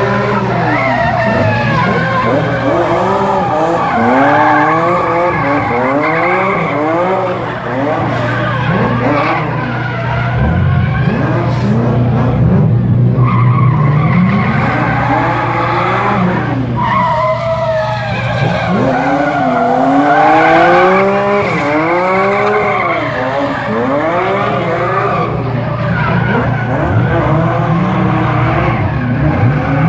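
BMW M3 drift car's engine revving hard up and down again and again, its pitch rising and falling about once a second, with its rear tyres spinning and skidding through the drift.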